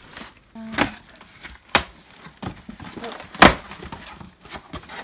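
Four or five sharp wooden knocks as a heavy wooden cutting board is handled and set down on a hard surface, the loudest about three and a half seconds in.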